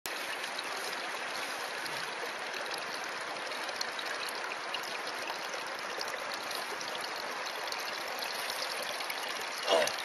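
Small stream of running water trickling steadily, with one short, louder sound near the end.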